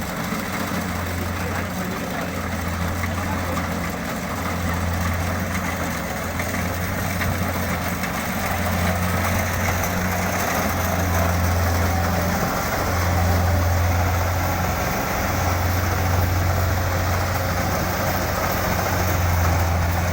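Kubota DC-70 combine harvester running steadily under load: a low diesel engine drone that swells and eases every few seconds, over the even rushing noise of the machine's working parts.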